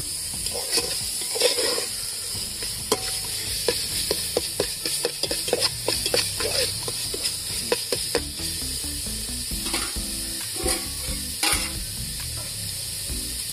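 Spice paste frying and sizzling in an aluminium pot while a metal spatula stirs it, with frequent clicks and scrapes of the spatula against the pot.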